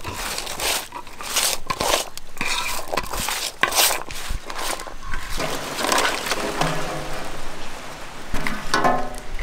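Hands crushing and mixing chopped vegetables with turmeric and salt: crackly, crunching rustles. In the second half there are pitched, voice-like calls in the background, about six seconds in and again near the end.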